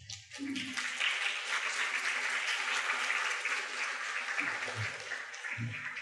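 Audience applauding at the end of a talk, building up in the first second, holding steady, then dying away near the end.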